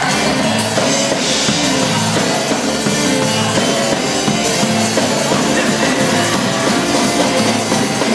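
Live gospel praise-break band playing: drum kit with cymbals, electric bass guitar and keyboard together in a dense, steady groove.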